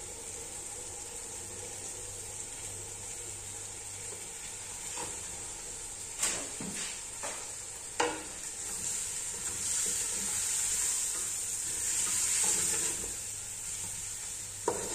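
Chicken and tomato paste sizzling as they are sautéed in an aluminium pot, stirred with a spatula that knocks sharply against the pot a few times, around the middle and near the end. The sizzle grows louder in the second half as the paste fries.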